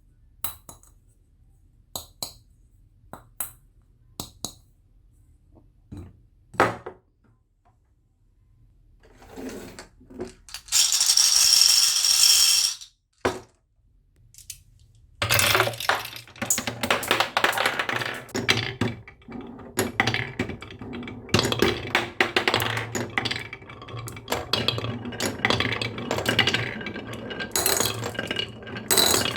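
Marbles clicking and clattering down a marble run track: first a few separate clicks, then a loud rush of about two seconds midway, then dense continuous clatter of many marbles rolling and knocking together.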